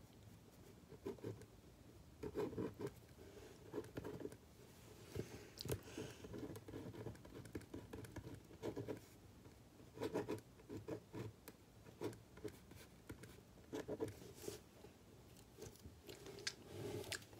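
Pen writing on paper: faint scratching in irregular short strokes, with light taps.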